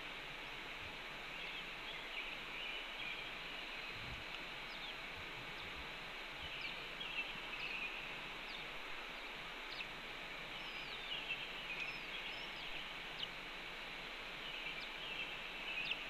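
Steady outdoor hiss with birds chirping and twittering in the background in short, quick calls, and a few faint low knocks about four to six seconds in.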